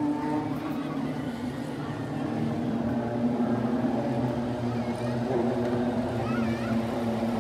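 Engines of a field of Legends race cars running as they circle the track, heard as a steady drone.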